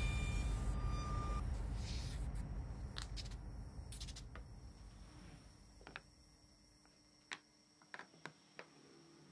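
CNC router milling MDF, its low machine noise fading away over the first few seconds. Then a few light knocks of MDF as the cut-out piece is handled.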